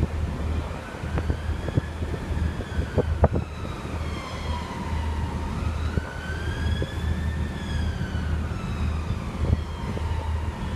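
A siren wailing in a slow rise and fall, going up and down about twice, over wind rumbling on the microphone, with a couple of sharp knocks about three seconds in.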